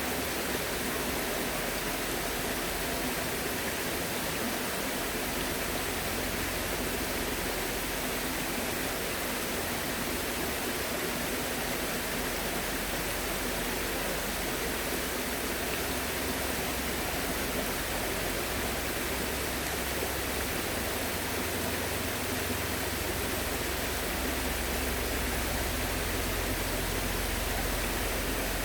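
A steady, even rushing noise with no distinct events, with a low rumble underneath that grows stronger over the last third.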